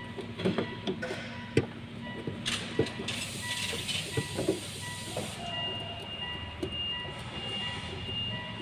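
Scattered light clicks and knocks of hand work on the car, with a hiss of compressed air for about two and a half seconds near the middle. A faint steady high whine sits under it, and a second, higher tone joins about halfway through.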